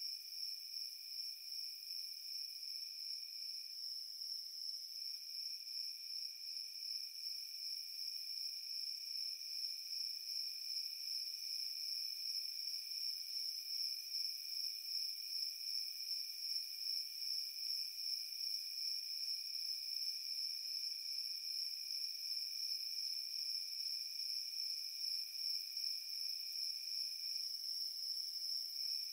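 Crickets trilling steadily in a night chorus: one high, continuous trill, with a lower trill under it that drops out briefly twice, about four seconds in and near the end.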